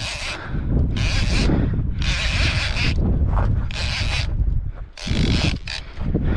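Fishing reel being cranked hard in repeated bursts of half a second to a second, a whirring, ratcheting wind broken by short pauses, as line is taken up on a hooked shark swimming toward the angler. Wind rumbles on the microphone underneath.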